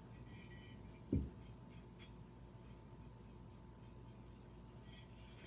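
Paintbrush bristles scratching faintly as white acrylic paint is brushed onto a ceramic cottage, with one short low thump about a second in.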